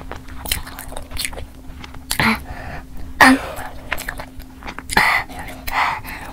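Close-miked eating sounds of sauce-coated fried chicken: the crust tearing apart by hand, then biting and chewing with wet, sticky mouth smacks and clicks. Several louder smacks stand out, over a faint steady hum.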